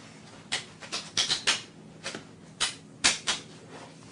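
A run of short, irregular clicks and rustles, about ten in four seconds, light and sharp, with quiet between them.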